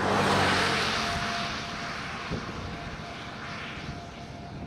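A road vehicle passing close by: a loud rush of tyre and air noise with a low engine hum, peaking just after the start and fading away over about two seconds.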